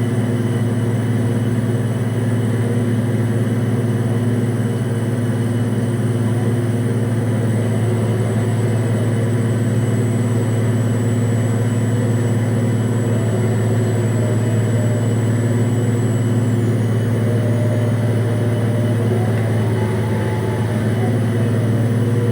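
Offshore platform crane running: a steady, loud low machinery drone, with a faint whine that rises and falls near the end.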